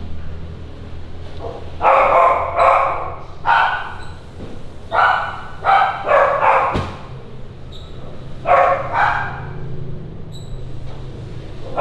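A dog barking repeatedly in short bursts, in clusters of two to four barks, with a single sharp click about seven seconds in.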